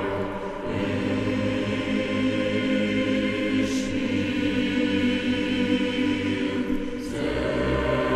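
Background music with sustained choir-like voices over held chords; a deeper bass part comes in about seven seconds in.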